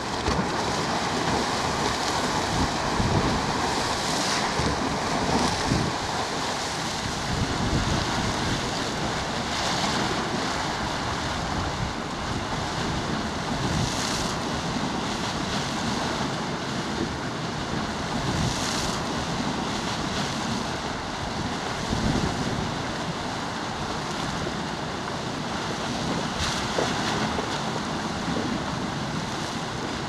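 Geyser erupting: a steady rush of splashing water and steam, swelling briefly every few seconds.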